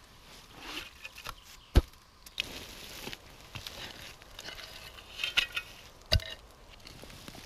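Digging in forest soil with a spade and a gloved hand: soil scraping and crunching, with two sharp knocks, the louder one about two seconds in and another about six seconds in.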